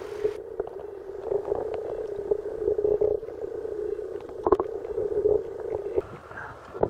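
River water heard with the camera held under the surface: a muffled, dull wash with a steady low hum and scattered knocks, the loudest about four and a half seconds in. About six seconds in the sound brightens a little as the camera comes back up toward the surface.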